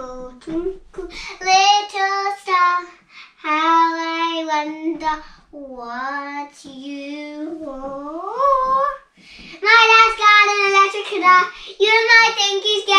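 Young girls singing a song without accompaniment, their high voices sliding between notes, with brief breaths between phrases.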